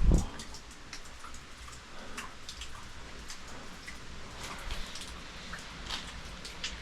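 Water dripping in a wet cave: scattered drops falling at irregular times over a faint steady hiss, with one low thump right at the start.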